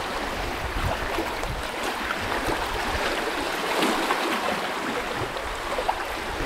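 Light waves lapping and splashing, with many small drips and trickles of water.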